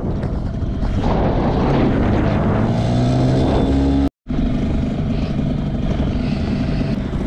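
Small outboard motor pushing an inflatable dinghy under way, running steadily with wind and water noise over it; its note rises a little before the sound cuts out for a moment about four seconds in, then it runs on at an even pitch.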